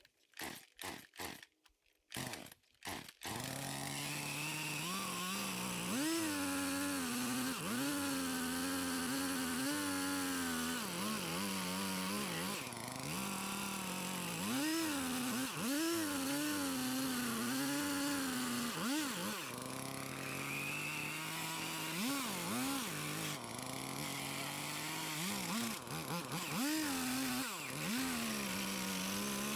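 Gasoline chainsaw started with a few quick pulls that catch about three seconds in, then running with its engine revving up and down repeatedly as it cuts wood.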